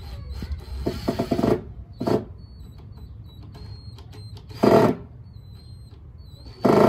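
Cordless drill driving screws into pine boards in short bursts: a longer run with rapid clattering near the start, then three brief runs, the last two the loudest. The clatter fits the bit slipping in the screw heads for lack of pressure.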